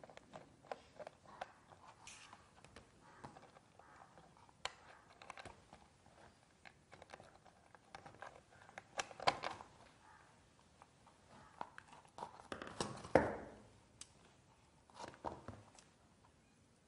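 Faint handling of electrical wiring on a wooden testing board: scattered small clicks and scrapes as insulated wires are twisted and fixed to switch and socket terminals, with louder knocks about nine and thirteen seconds in.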